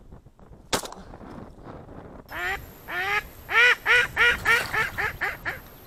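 A bird calling: a run of about ten short calls, each rising then falling in pitch, coming faster after the first few. A single sharp click comes about a second before them.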